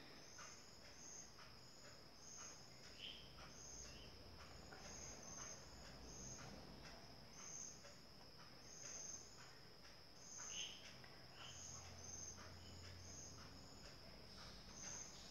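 Near silence with a faint cricket in the background: short high chirps repeating about once or twice a second over a steady high trill. Faint soft ticks come from hands working yarn and a crochet hook.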